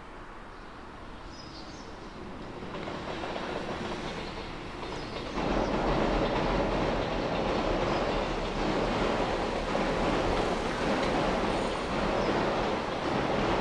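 A train approaching and passing along a raised line. It grows louder about three seconds in, rises sharply again about five seconds in, then runs past steadily at full loudness.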